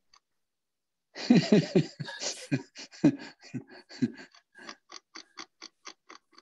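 A person laughing over a video call. A burst of hearty laughter begins about a second in and trails off into short, evenly spaced breathy laughs, about three a second.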